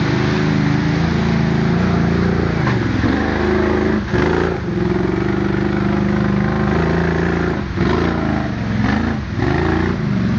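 ATV engine running under load up a rough trail, its note dipping and climbing back several times as the throttle is eased off and opened again.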